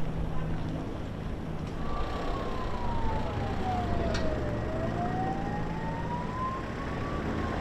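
Emergency vehicle siren in a slow wail, its single tone falling and rising about every two and a half seconds, starting about two seconds in, over a steady low engine and traffic rumble.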